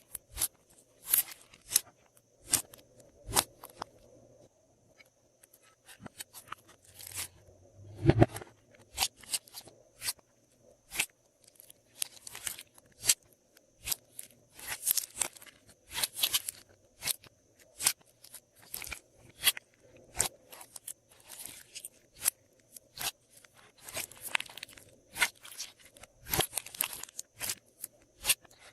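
Glossy slime being mixed and pressed by hand with added bits, giving irregular sharp clicks and pops, with one heavier, deeper squelch about eight seconds in.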